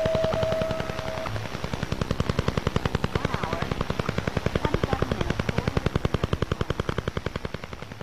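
The Russian Woodpecker, the pulsed shortwave signal of the Soviet Duga over-the-horizon radar, received on an HF radio as a rapid, even tapping at about ten pulses a second. A steady whistle tone sounds under it for about the first second, and the tapping fades down near the end.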